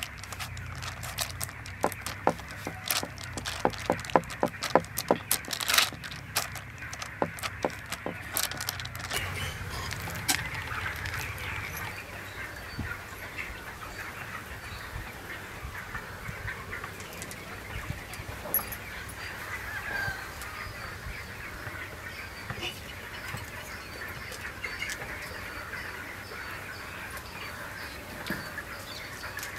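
Fingers pressing and patting stuffed dough flat on greased butter paper, with quick sharp taps over the first eight or nine seconds. Birds call steadily in the background.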